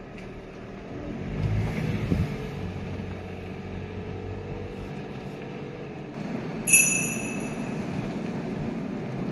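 Car driving slowly on a paved road, its steady road and engine noise heard from inside the cabin. A short high-pitched tone sounds about two-thirds of the way through.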